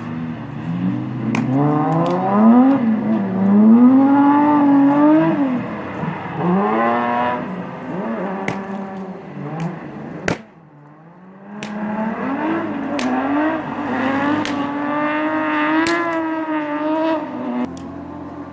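Peugeot 3008 Trophée Andros ice-racing car's engine revving up and down over and over, with a few sharp cracks among the revs. It drops away briefly about ten seconds in, then climbs again.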